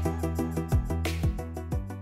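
Outro music with a steady beat and deep drum hits, gradually fading out.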